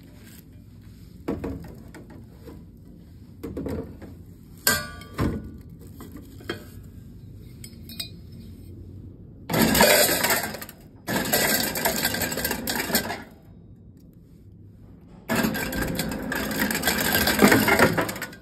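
Ice cubes dispensed into a plastic ice bucket: a few separate clinks and knocks, then three long runs of ice rattling into the bucket, the last running to the end.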